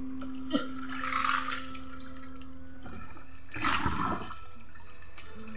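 Water splashing and pouring off a wire-mesh box fish trap as it is hauled up out of the river, in two surges, about a second in and again near four seconds, with a short knock just before the first. Steady background music runs underneath.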